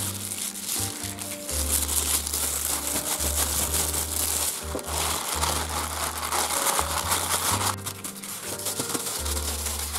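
Thin polyethylene cooking bag crinkling as hands knead, open and twist it around an egg mixture, over background music.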